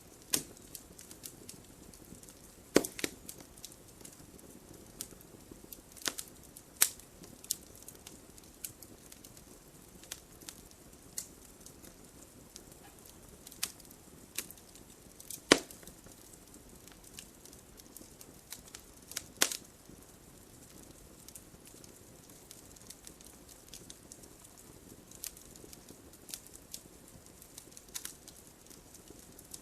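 Campfire crackling: a low steady hiss with scattered pops and snaps, a few louder sharp cracks among them, loudest about halfway through.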